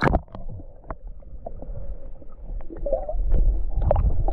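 River water sloshing and splashing close to the microphone, with a sharp knock at the start and scattered clicks of the camera being handled by a swimmer. Low rumbling from the water and handling grows louder after about three seconds.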